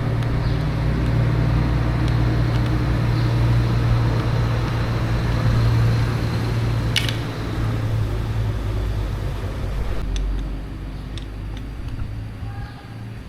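A machine's motor running steadily with a strong low hum, a single sharp click about seven seconds in, and the sound easing off near the end.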